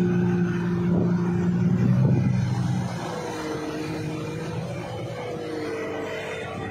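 Motorboat engine running steadily as the boat moves through floodwater, its level dropping noticeably about three seconds in.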